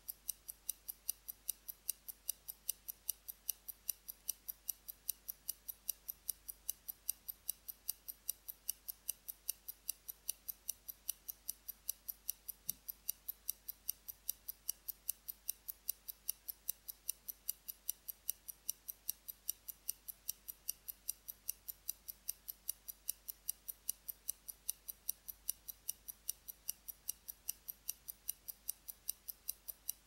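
Poljot 17-jewel mechanical wristwatch ticking steadily, its escapement giving crisp, high-pitched, evenly spaced ticks at about five a second.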